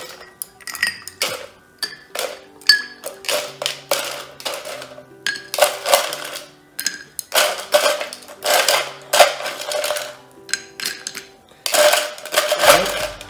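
Ice cubes clattering and clinking as they are scooped from an ice bucket and dropped into a tall glass, in a long irregular string of rattles, some loud, with soft background music underneath.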